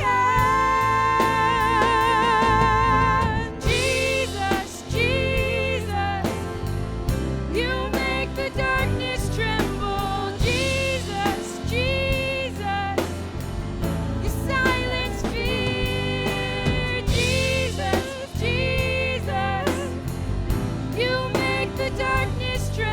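Live worship band playing a contemporary worship song: drums, bass and guitars under a melody line of long held, wavering notes and shorter phrases, with singing heard.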